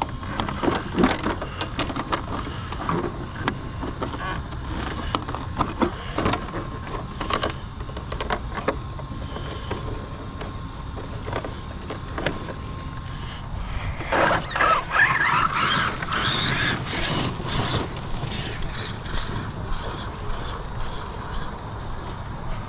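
Large brushless RC truck (Arrma Outcast 8S) running over dirt and grass: repeated knocks and rattles from the chassis and suspension. About two-thirds of the way through, the motor whines up and down in pitch for a few seconds.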